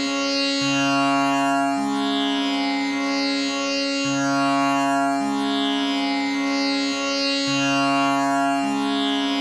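Tanpura drone tuned to C sharp, its strings plucked in a slow repeating cycle of about three and a half seconds: a fifth above the tonic comes in, then the tonic strings and a low tonic an octave down, all over a steady sustained tonic with a shimmering buzz in the overtones.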